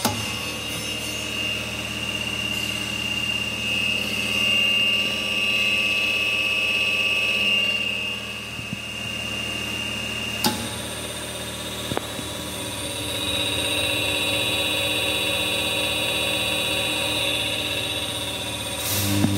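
Hydraulic power unit running: the electric motor and pump give a steady hum with a high whine, louder in the first half. A sharp click about halfway through and a softer one a second and a half later.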